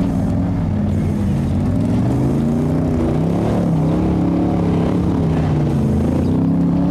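Lifted 4x4 pickup truck's engine revving while driving through a deep mud bog, its pitch rising and falling repeatedly as the throttle is worked.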